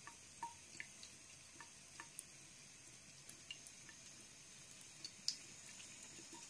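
A thin stream of tap water running faintly into a bathroom sink, with a scattering of soft, irregular ticks.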